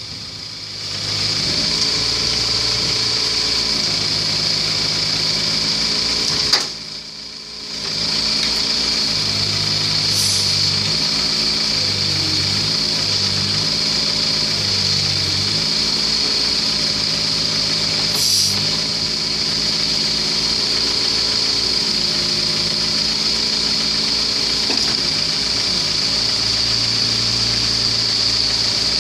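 Case 2.3-tonne mini excavator's diesel engine running, with a steady high whine over it. The engine note dips and shifts under load as the boom and bucket are worked. There are two short knocks, about ten and eighteen seconds in.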